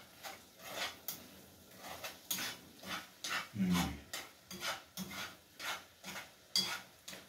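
Repeated short scraping and rubbing strokes, about two a second, from breaking leftover ugali off a plate and working it into a frying pan of eggs. There is a duller, low thud about halfway through.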